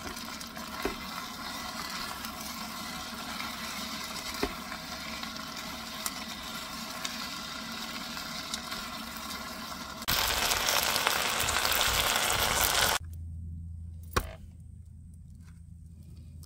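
Food sizzling in a small electric pot, with a few light taps of a utensil against the pot. Near the end the sizzling is much louder for about three seconds, then cuts off abruptly and a quiet low hum is left.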